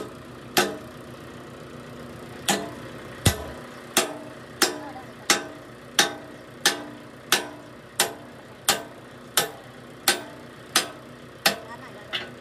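Steel hand hammer striking a steel pivot pin to drive it into the joint at the end of a hydraulic cylinder on an excavator arm. About sixteen sharp, ringing metal blows come at an even pace of a little under one and a half a second, after a pause of about two seconds near the start.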